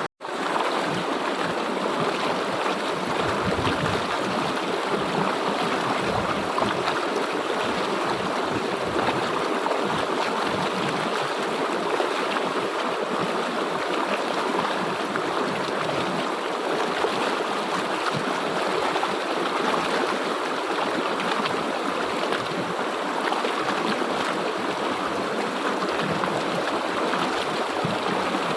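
River water flowing steadily, a constant rushing sound. It cuts out for a split second at the very start.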